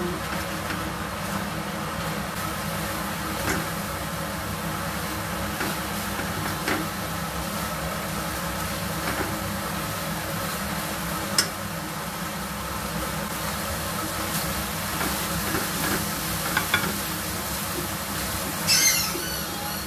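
Spicy chili sauce with gonggong snails sizzling in a nonstick frying pan while a silicone spatula stirs in basil leaves, with light scrapes and taps of the spatula against the pan. A steady low hum runs underneath, and a louder brief clatter comes near the end.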